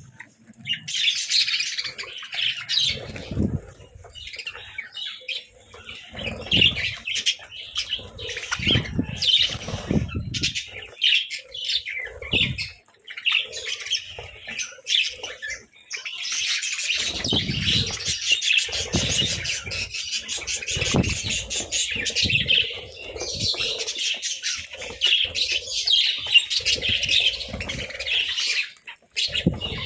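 Budgerigars chirping and chattering continuously, many quick high calls overlapping, with repeated short low thumps mixed in.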